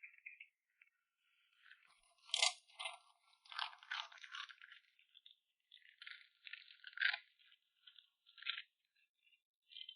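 Dogs eating from their dishes: irregular crunching, with food rattling and clinking against the dish, loudest about two and a half seconds in.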